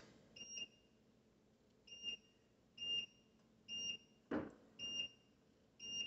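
Hisense dishwasher control panel beeping once at each tap of the Delay button, six short high beeps about a second apart, as the delay-start time is stepped up. A single soft knock about four seconds in.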